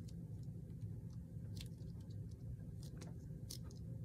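Faint, scattered small ticks and taps of a stamp being pressed and dabbed on an ink pad by hand, over a steady low hum.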